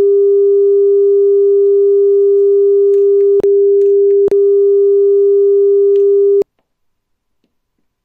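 A steady pure test tone played back from cassette on a Pioneer CT-939 three-head deck, taken directly from the deck's output: one unchanging low-mid pitch with a faint higher overtone. Two brief clicks break it about three and a half and four and a quarter seconds in, and it cuts off suddenly about six and a half seconds in.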